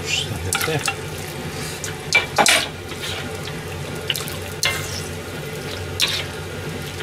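Metal ladle scraping and stirring in an iron wok of simmering stew, stirring in potato-starch slurry to thicken the sauce. A series of irregular scraping strokes, the loudest about two and a half seconds in, over a steady sizzle from the pan.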